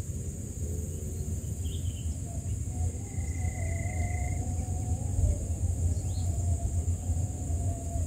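Steady high-pitched insect drone over a constant low rumble. A short faint steady whistle sounds about three seconds in, and a faint wavering hum joins at about the same time.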